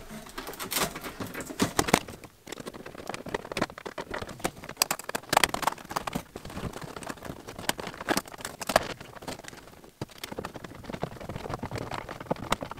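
Flexible heater ducting being worked onto a diesel air heater's hot-air outlet by hand: irregular rustling and scraping of the hose, with light knocks against the wooden box.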